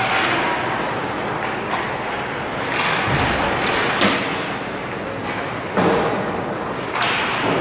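Ice hockey play in an arena rink: a steady scrape and hiss of skates on the ice, broken by several sharp knocks of sticks and puck, the loudest about halfway through.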